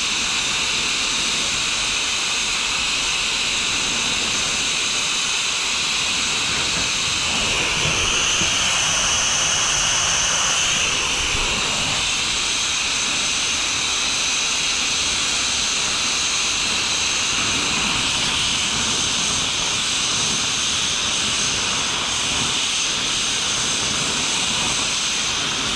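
Steady hissing roar of a gas torch flame playing on a Yamaha YZ250's two-stroke expansion chamber, which is sealed and pressurised with air so that the heat pushes a dent out. The sound swells slightly a few seconds in.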